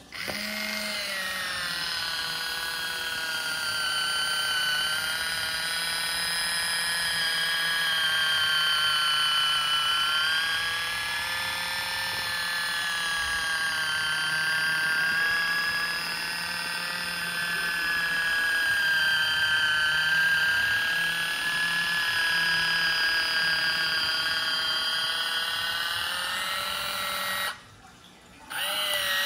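Kitchen Mama Orbit One electric can opener's motor whining steadily as it travels around the rim cutting open a small can, its pitch wavering slowly up and down. It stops about two seconds before the end, then whines again briefly.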